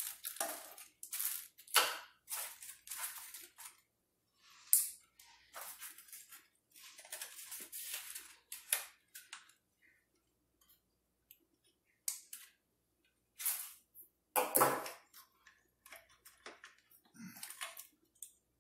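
Plastic wrapping crinkling and rustling in irregular bursts while the booster seat's strap set is unwrapped and handled, with sharp clicks and clacks of the straps' plastic buckles.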